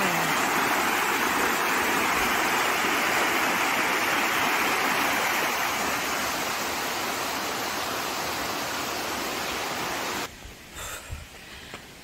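Stream water rushing down a rock chute in a small cascade: a steady rush that eases a little after about six seconds and cuts off suddenly near the end.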